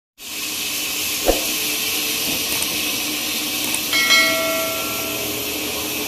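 Horizontal band sawmill running, its blade giving a steady high hiss through a log on the trolley carriage over a low motor hum. A single knock comes about a second in, and a short metallic ring sounds about four seconds in and fades within a second.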